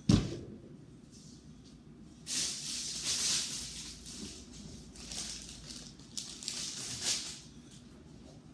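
Fridge items being taken out and handled: a sharp knock as something is set down, then a stretch of rustling and shuffling with several shorter rustles after it.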